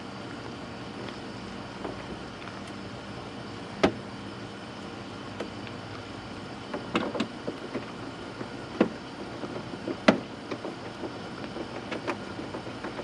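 Scattered clicks and knocks of hand work on a plastic fender flare as it is pushed into the truck and a 10 mm bolt is started, over a steady low hum.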